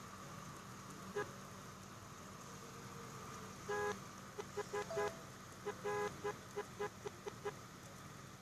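Telolet multi-tone vehicle horn tooting a quick rhythmic tune of short blasts, with a couple of longer notes among them, starting about halfway through.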